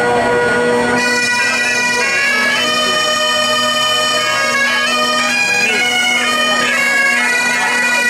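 Several Great Highland bagpipes played together: the drones sound steadily throughout, and about a second in the chanters strike in with a melody stepping up and down over them.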